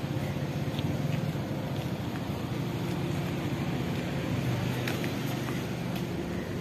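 Town street background: a steady low hum of vehicle engines, with a few faint clicks.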